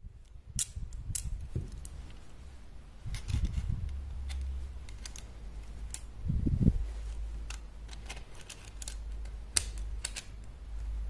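Small metal clicks and rattles, irregular and scattered, from the pliers' handle and adjusting axle being worked by hand, with a few dull handling bumps.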